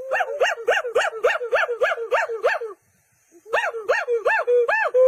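A monkey giving rapid, repeated yelping calls, about four a second, each rising and then dropping in pitch. A run of about ten calls breaks off for under a second and then starts again with another half-dozen.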